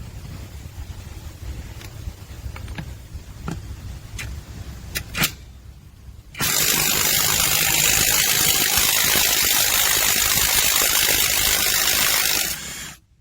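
Cordless brushless 1/2-inch impact wrench running loud and steady for about six seconds, then stopping abruptly near the end. Before it there is a low rumble with a few sharp clicks of handling.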